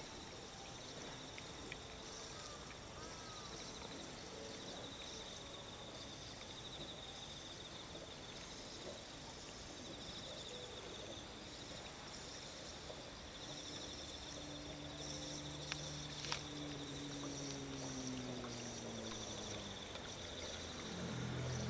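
Insects chirring in a steady, high, pulsing trill. In the second half a low hum comes in and falls in pitch.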